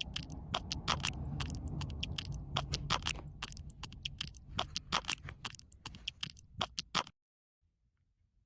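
Irregular clicks and scraping of paper as a pop-up book is handled, over a low hum. The sound cuts off abruptly about seven seconds in.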